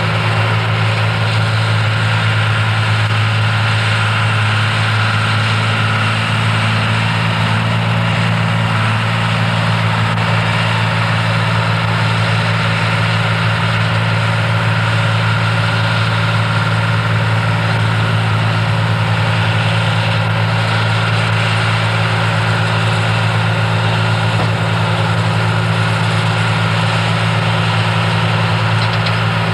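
John Deere tractor's diesel engine running at a steady speed under load while pulling a round baler, a constant low hum with no change in pitch.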